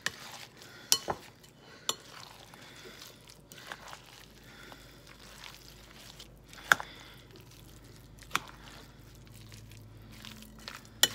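A utensil stirring thick, mayonnaise-dressed chicken salad in a glass bowl: soft squishing of the mixture with occasional sharp clinks against the glass, the loudest about two-thirds of the way through.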